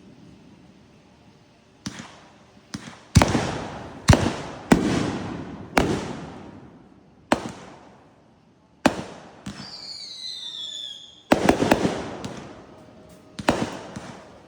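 Fireworks going off: a string of sharp bangs, each with a fading echoing tail. About ten seconds in comes a whistle falling in pitch, followed by a quick cluster of bangs.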